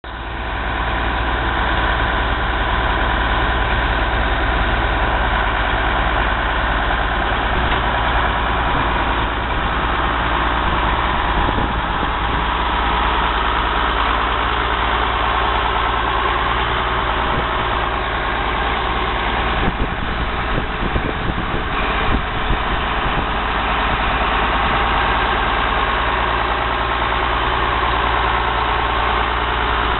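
A 1988 Case International 7130 tractor's 8.3-litre six-cylinder diesel engine idling steadily.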